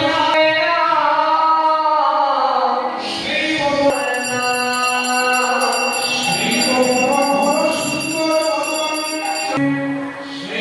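Devotional singing: voices holding and bending sung notes over instrumental accompaniment, with a bright ringing shimmer from about four seconds in until near the end.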